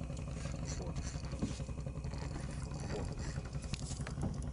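Boat engine running steadily at idle, a low, even rumble.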